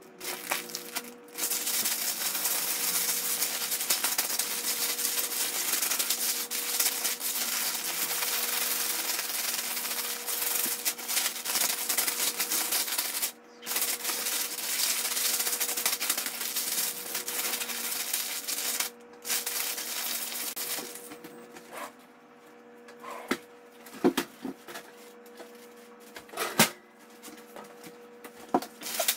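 Large zip-top plastic bag of ice and salt being shaken and kneaded by hand, a dense rustling and crunching of plastic and ice in long spells broken by two short pauses. Near the end the shaking stops, leaving a few scattered clicks and knocks.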